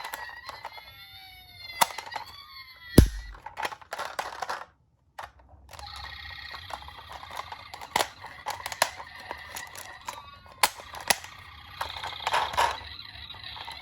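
Ambulance siren tones, gliding in the first few seconds and held from about six seconds on, mixed with frequent small clicks and knocks from a miniature toy ambulance being handled and run. There is one loud thump about three seconds in, and a brief gap near five seconds.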